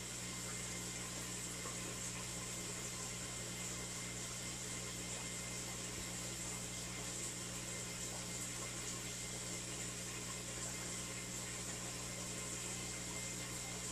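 Steady low hum with an even hiss over it, typical of an aquarium's filter or air pump running.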